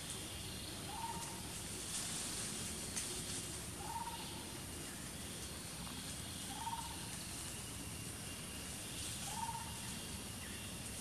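A bird repeating one short call, a brief note that rises and falls, four times at even intervals of about two and a half seconds, over a steady high hiss of forest background.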